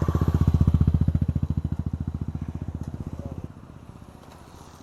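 Motorcycle engine running close by with a fast, even exhaust beat. It is loudest about half a second in, fades, then drops off sharply about three and a half seconds in to a fainter beat.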